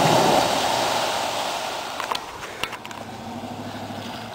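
Full-size Ford Bronco driving through mud, engine running. A loud rush of noise fades over the first two seconds, and a few sharp clicks come about two seconds in.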